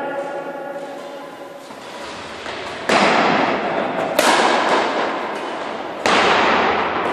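Badminton rackets striking the shuttlecock in a fast doubles rally: several sharp smacks over the last four seconds, each ringing on in the echo of a large hall.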